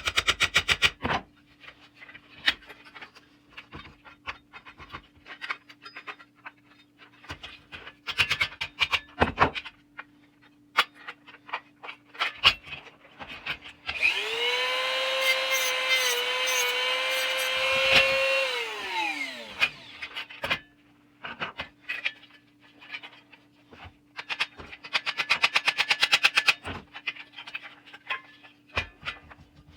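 A small electric power tool runs steadily for about four seconds near the middle, then winds down with a falling whine. Around it are short bursts of scraping and clicking from hand work on the toy.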